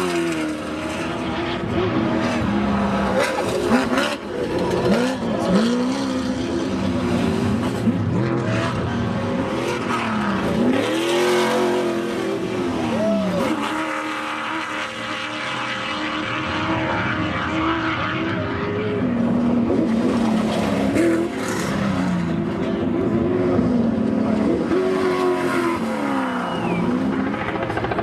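Off-road desert race trucks' engines revving, their pitch rising and falling over and over as they accelerate and back off, at times more than one engine at once.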